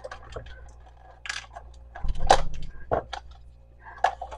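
Scattered clicks, knocks and short rustles of kitchen containers and food packaging being handled, with a louder knock about two seconds in.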